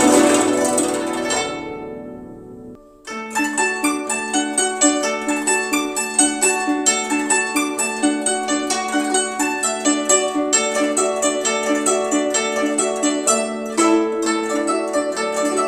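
Guzheng (Chinese zither) music. A ringing passage fades away, and after a brief gap about three seconds in, a quick run of plucked notes starts over a sustained low note.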